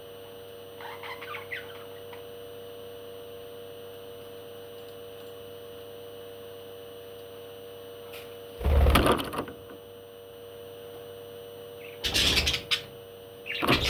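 A pet parrot giving a few faint chirps about a second in, then three loud, harsh squawks in the second half, over a steady electrical hum.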